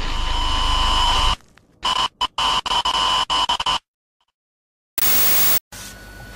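Loud distorted electronic buzz with two steady high tones over a low hum. After about a second and a half it is chopped into rapid stuttering on-off pieces, then cuts to a second of silence, followed by a short loud burst of static hiss.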